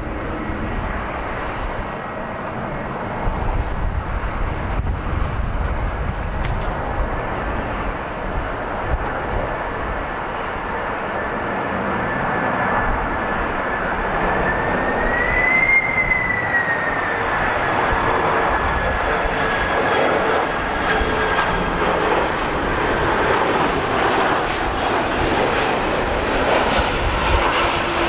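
Boeing 767-300 freighter's twin turbofan engines on final approach, growing louder as the aircraft nears. A steady high whine runs over the engine noise and rises briefly in pitch about halfway through before settling back.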